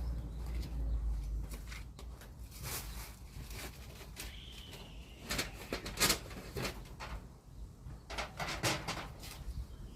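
Irregular string of short rustles and clicks from hands-on work, loudest about six seconds in, with a faint short bird call near the middle and a low rumble of wind underneath.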